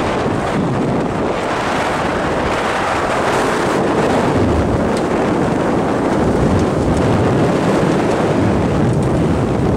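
Steady rush of wind buffeting the microphone aboard a sailboat under way, with the wash of the sea beneath it.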